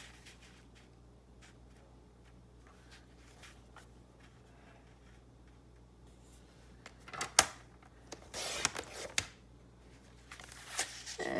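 Paper being cut and handled on a craft table: faint taps at first, then a sharp click about seven seconds in, followed by short scraping, rustling paper sounds.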